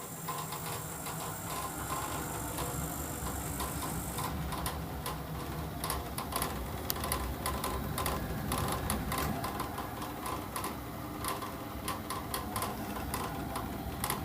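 Navien gas boiler running with a steady hum and a fast, irregular rattling knock, with a high hiss that stops about four seconds in. The owner takes the knocking, which shakes the outlet pipe, for a faulty three-way valve.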